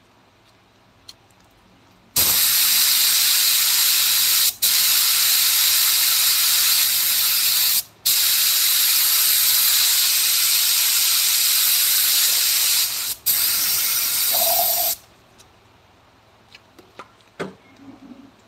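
Compressed air hissing steadily from an air nozzle in bursts, broken by three brief pauses, cutting off suddenly about 15 seconds in. A few faint ticks and taps follow.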